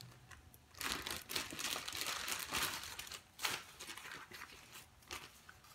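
Plastic packaging of sliced mozzarella cheese crinkling as it is opened and handled, a run of irregular crackles starting about a second in.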